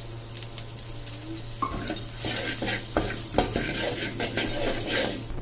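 Whole spices and slit green chillies frying in oil in a metal pot, sizzling, while a steel slotted spoon stirs and scrapes against the pot with masala powder added. The sizzle and scraping grow louder about two seconds in, over a steady low hum.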